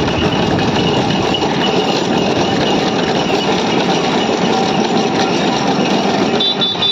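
Wooden-wheeled bullock cart rolling along a paved road, giving a steady rumbling rattle from its wheels and frame.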